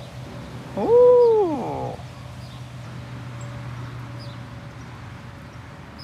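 A single hoot-like call about a second in that rises and then falls in pitch, lasting just under a second, over a steady low hum.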